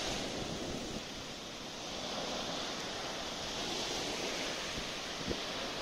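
Small waves breaking and washing up a sandy beach: a steady hiss of surf that slowly eases and builds again, with some wind on the microphone.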